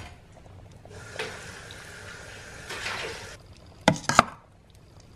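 A steady hiss lasting about two seconds, then a metal ladle knocking twice against the soup pot.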